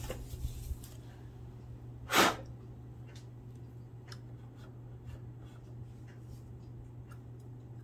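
Hands working a Singer sewing machine's mechanism make faint scattered clicks and rubbing, over a steady low hum. One short, loud whoosh comes about two seconds in.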